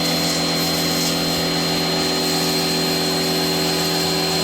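Parkside PHD 110 D1 1300 W electric pressure washer running with the trigger held: a steady motor hum with the hiss of the high-pressure water jet.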